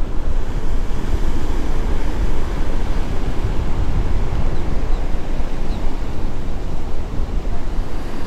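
Steady wind buffeting the action camera's microphone in an uneven low rumble, over the wash of ocean surf breaking below the pier.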